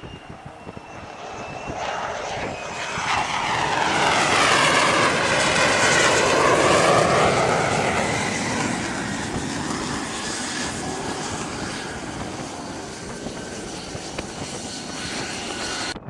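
F-35C jet engine as the fighter comes in and lands on a carrier deck. It swells to its loudest about four to eight seconds in, with a sweeping shift in tone as it passes close, then keeps running loud. The sound breaks off suddenly near the end.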